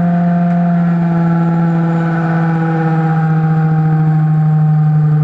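Old LG washing machine's motor running with a loud, steady hum and a set of held tones above it. The owner takes this much noise as a sign that the motor has gone bad.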